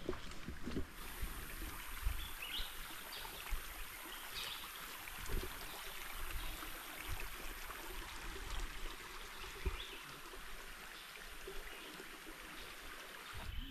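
Steady outdoor hiss like water trickling in a stream, with a few short faint chirps. A high steady drone starts about a second in and stops near the end.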